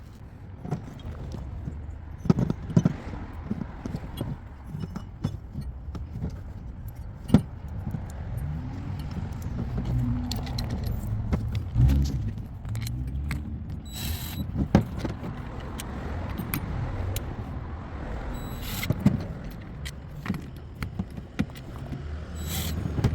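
Irregular clinks and knocks of hard objects being handled, over a steady low rumble.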